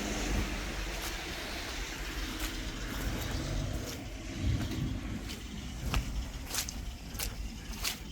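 Footsteps crunching through snow, a short sharp crunch every half second or so, over the low rumble of a car on a slushy road.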